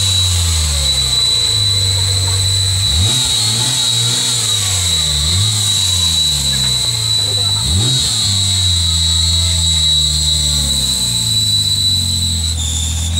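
Ford Mustang's engine running with its revs rising and falling, two quick blips of the throttle, and a steady high-pitched whine over it; the uploader calls this a terrible, nasty clutch noise.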